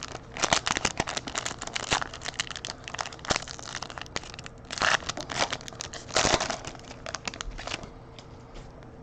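A foil trading-card pack wrapper being crinkled and torn open by hand, in irregular crackling rustles with two louder flurries midway.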